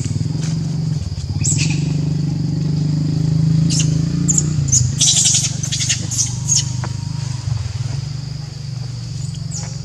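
A motor engine running steadily at low pitch, easing off briefly about five seconds in. A quick cluster of sharp high chirps comes over it about four to seven seconds in.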